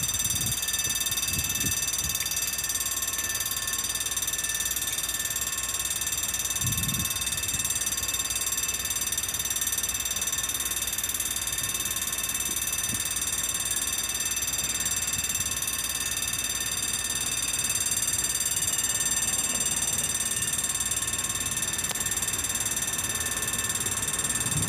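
Level-crossing warning bell ringing rapidly and without a break, a fast mechanical clatter with steady ringing tones over it, the signal that a train is approaching and the barriers are down.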